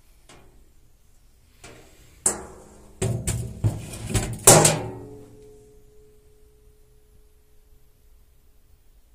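A stainless-steel toaster is set down in an empty bathtub: a run of knocks and metal clatters against the tub, the loudest about four and a half seconds in. A faint ringing tone follows and fades over the next few seconds.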